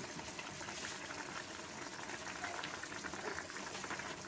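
Spaghetti boiling in a pot of water on the stove: steady bubbling with many small pops.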